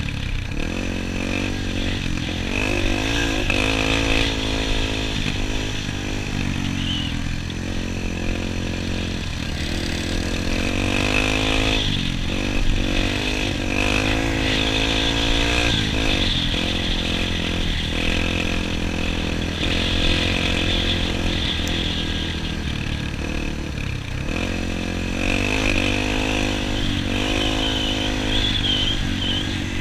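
Dirt bike engine running while riding, its revs rising and falling several times as the rider accelerates and eases off.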